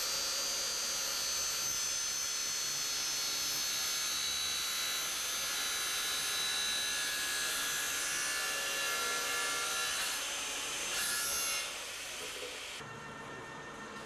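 Electric metal-cutting circular saw cutting through a steel cantilever tube for overhead railway line, a steady ringing grind as the lever-fed blade works through the tube. The sound changes around ten seconds in and stops abruptly about two seconds later, leaving a quieter hum.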